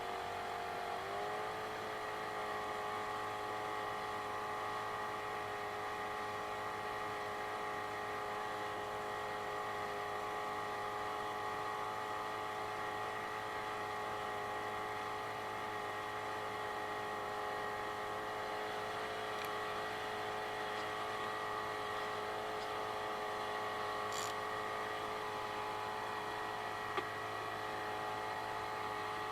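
A small motor running steadily with an even, whining hum that settles slightly lower in pitch about a second in.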